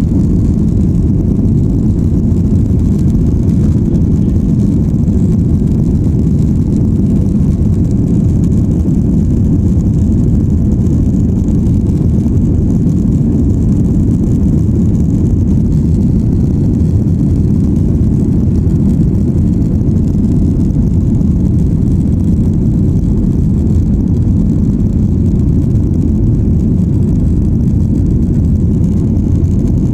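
Boeing 737-800 airliner's jet engines during takeoff: a loud, steady low rumble that holds without change.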